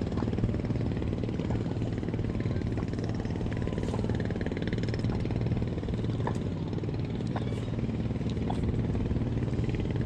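An engine running steadily at idle, a constant low hum, with a few faint scattered clicks.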